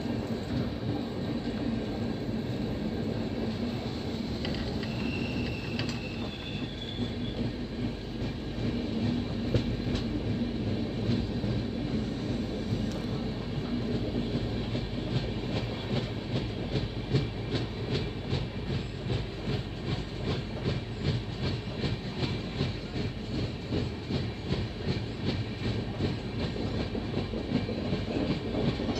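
Passenger train running at speed: a steady rumble of wheels on rail, with a regular clickety-clack of wheels over rail joints that becomes clear and rhythmic in the second half. Two brief high squeaks come about five to seven seconds in.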